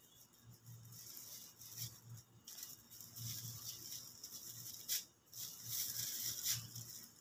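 Irregular rustling and crinkling of date-palm fronds and a plastic bag as ripe dates are picked by hand from the bunch, with one sharp click just before five seconds in, over a faint low hum.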